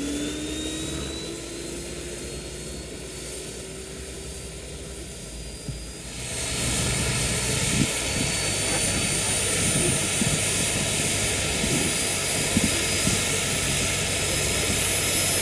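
Model gas-turbine engine of a large scale RC Bell 206 JetRanger helicopter spooling up at start-up, with a whine rising steadily in pitch. About six seconds in it turns suddenly louder and rougher as the turbine comes up to power, and a high whine keeps climbing slowly.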